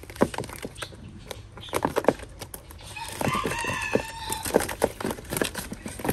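A bantam rooster crows once, about three seconds in, one held call lasting a little over a second, among scattered knocks and rustles.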